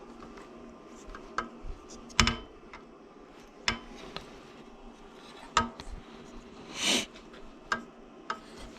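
Small metal parts and hand tools clinking and knocking against one another in irregular single strikes, with a short hiss about seven seconds in.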